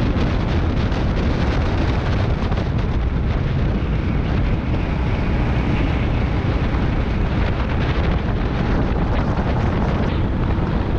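Rental racing go-kart at speed heard from an onboard camera: a steady rush of wind buffeting the microphone over the kart's running noise.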